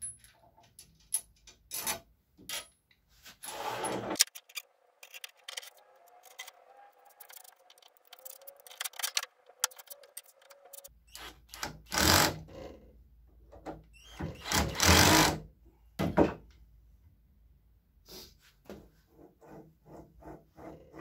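Small clicks and knocks of parts and nuts being handled, then a cordless drill running in a few short bursts of about a second each, driving screws into a wooden block; the longest, loudest run comes about two thirds of the way through.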